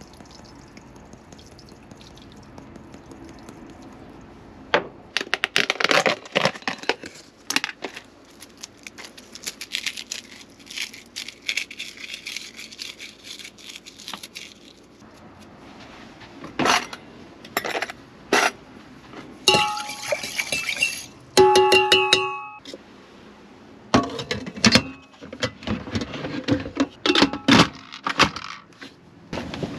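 Kitchen handling: a glass spice jar and hands clinking and knocking against a stainless steel pot, with scattered rattles and taps, and the lid of an Instant Pot pressure cooker being fitted near the end. About two-thirds through there is a short run of electronic-sounding tones.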